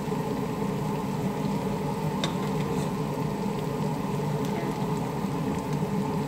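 Chicken and shrimp sizzling steadily in a hot wok as rice is piled in for fried rice, over a constant low hum.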